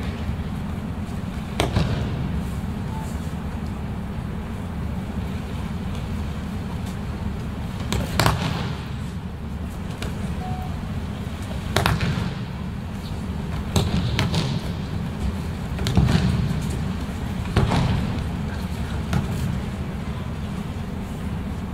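Aikido breakfalls: bodies of the attackers slapping down onto tatami mats, a sharp thud every few seconds, about seven in all, over the steady low hum of a large hall.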